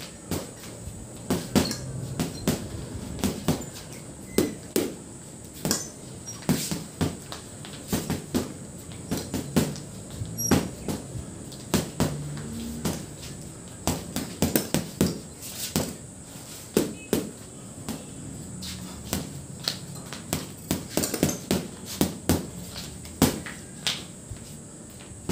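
Boxing gloves punching a hanging heavy bag: sharp thuds in quick combinations of two to four punches with short pauses between them.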